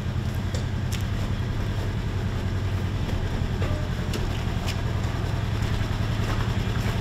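A motor vehicle's engine running steadily with a low, even drone, with a few short clicks or rattles over it.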